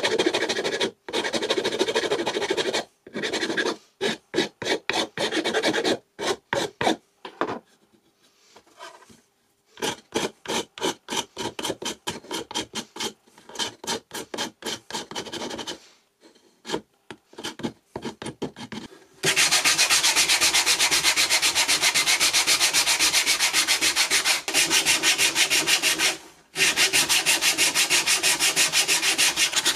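A flat metal file rasping across the wooden saw handle in quick back-and-forth strokes, in runs broken by short pauses. About two-thirds of the way through it gives way to sandpaper rubbed fast over the wooden handle, a denser, steadier scrubbing with one brief break near the end.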